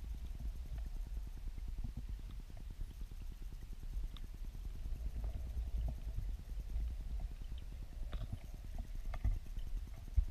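Low, fluttering rumble of turbulent weirpool water heard underwater, with scattered faint clicks and a sharper knock near the end.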